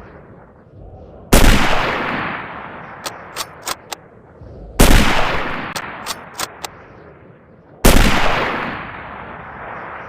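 Carcano M38 bolt-action rifle fired three times, about three seconds apart, each shot with a long echoing tail. After each of the first two shots the bolt is worked, heard as four quick metallic clicks.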